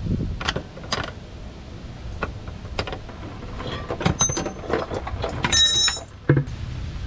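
Chrome-plated steel flare nut wrenches clicking and clinking as they are handled, with a short bright metallic ring a little past five seconds in, over a steady low rumble.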